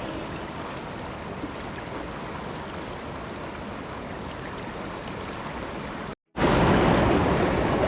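Steady rushing noise of flowing water. It cuts out briefly about six seconds in and comes back louder.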